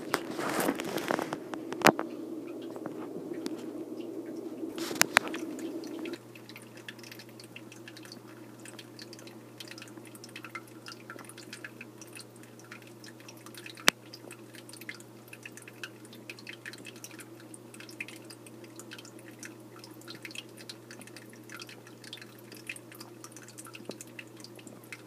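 Aquarium filter running: water trickling and dripping over a steady low pump hum, with many small drips throughout. A few louder splashes and clicks come in the first couple of seconds, and the hum changes about six seconds in.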